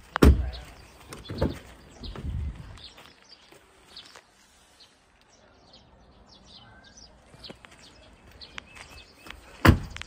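Car doors of a BYD Seagull being opened and shut: a loud door thump just after the start, a couple of softer knocks in the next two seconds, and another loud door thump near the end. Birds chirp faintly in between.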